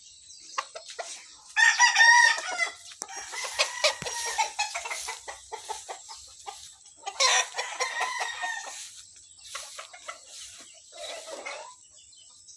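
Gamecocks crowing: a loud crow about two seconds in and another about seven seconds in, with clucking and short clicks and rustles between.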